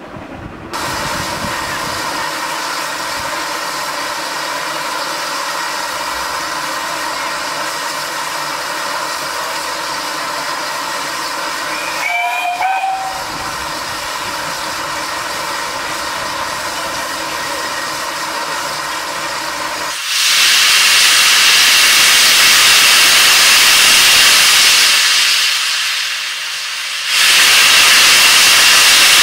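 Steam hissing steadily from a GWR 6400 class pannier tank locomotive standing at a platform, with a short whistle about 12 seconds in. About 20 seconds in a much louder rush of steam starts as the cylinder drain cocks blow, easing off briefly and then coming back loud near the end.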